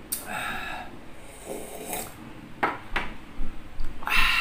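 A man breathing out hard in a few loud, noisy breaths, with the chili he is eating too spicy for him. Two sharp knocks, close together, come near the end as a ceramic mug is set down on a wooden table.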